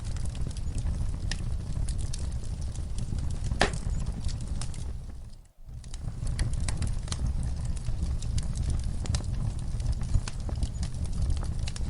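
Wood fire in a fireplace crackling, with irregular sharp pops over a steady low rumble; one louder pop a few seconds in. About halfway through the sound fades away almost to nothing and comes back within a second.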